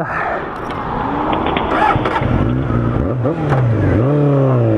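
Honda sport bike engine pulling away and accelerating, its pitch climbing, then dropping sharply twice (about 3 and 4 seconds in) at the shifts up through the gears.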